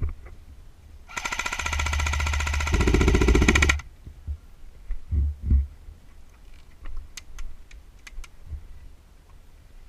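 An airsoft electric gun firing one long full-auto burst of about two and a half seconds, a fast even rattle of shots. It is followed by a couple of dull thumps and a few scattered light clicks.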